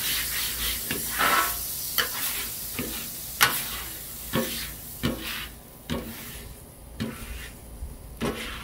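Steel griddle scraper scraping in short strokes across a hot flat-top griddle, with water sizzling as it deglazes the cooked-on chicken residue. The sizzle dies down in the second half.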